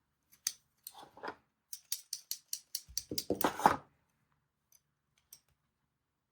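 Hands handling small hard objects: a quick run of clicks, about five a second, then a louder clatter of knocks and rattles about three seconds in.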